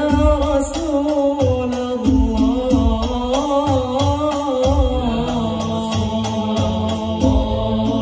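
Hadrah banjari ensemble performing: long, wavering melismatic vocal chant over a steady beat of hand-struck terbang frame drums, heard through a loudspeaker system.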